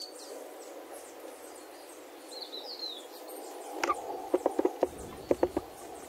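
Steady outdoor garden background with a few faint, high small-bird chirps, then a quick run of light, sharp taps about two-thirds of the way through.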